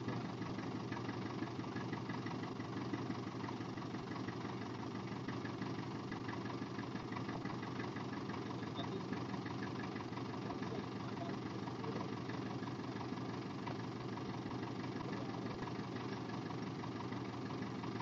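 Custom-built Land Rover Defender's engine idling steadily.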